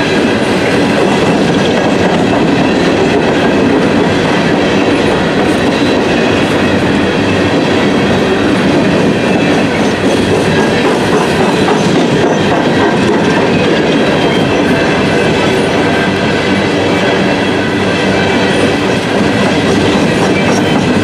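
Empty CSX coal hopper cars of a freight train rolling past close by: a steady, loud rumble of steel wheels running on the rails.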